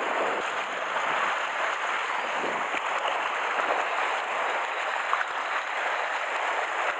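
Sea water washing and churning against a rocky shoreline: a steady surf wash with no distinct breaks.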